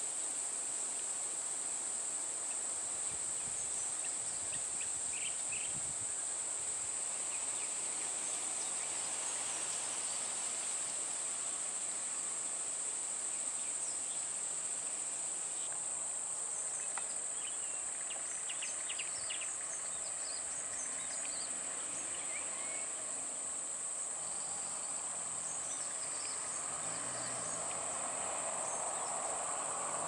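Insects shrilling in one steady high-pitched drone, with scattered short bird chirps. Near the end a vehicle engine comes in faintly underneath.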